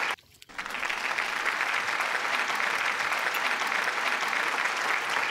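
Applause, many hands clapping steadily, with a brief gap just after the start; it cuts off abruptly at the end, like a sound effect laid over the footage.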